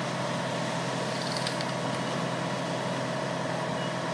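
Fire engine's engine running steadily, driving the pump that feeds the charged hoses, with an even hiss over its drone.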